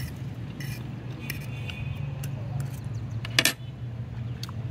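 Small clicks and clinks of eating from a plate, with one sharp clink about three and a half seconds in, over a steady low hum.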